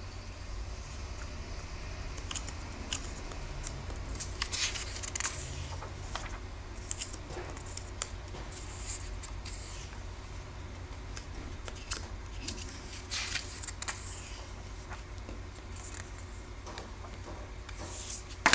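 Paper pages of a comic book being turned and flipped by hand: scattered rustles, swishes and light taps, with a sharper tap near the end.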